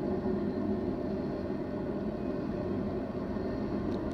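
BNSF intermodal freight train rolling past, a steady rumble of cars on the rails that eases slightly.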